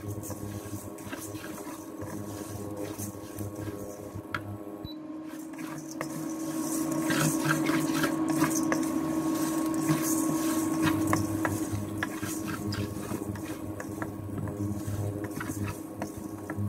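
Wooden spatula stirring and scraping moong dal lentils around a steel karai as they dry-roast, the grains rattling and hissing against the metal with many small clicks. A steady low hum runs underneath, and the stirring grows louder for several seconds in the middle.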